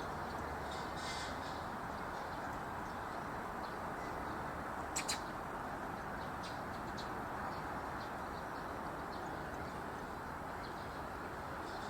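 Steady outdoor background noise with a few faint, high, short bird chirps, and two sharp short calls close together about five seconds in.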